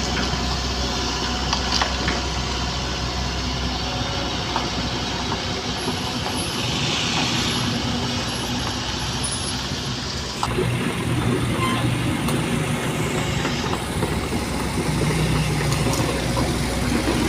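Heavy diesel machinery engine running steadily, with a few light clicks and knocks; it gets a little louder about ten seconds in.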